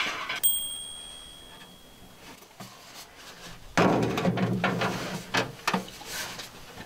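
Handling noise of a white plastic fuel tank being lifted and fitted into a bus's rear engine compartment: a sharp click with a brief ringing about half a second in, then knocking and scraping against the compartment for about two seconds, ending in a few sharp knocks.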